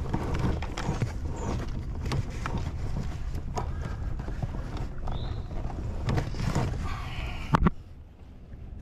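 Irregular knocks and clicks of handling in a fishing boat as a freshly caught smallmouth bass is unhooked with pliers, over a steady low rumble. A louder click comes about seven and a half seconds in, then the handling noise stops.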